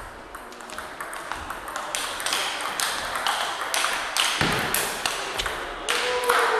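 Table tennis rally: the celluloid ball clicking off the paddles and bouncing on the table in quick succession, followed by a short shout near the end as the point ends.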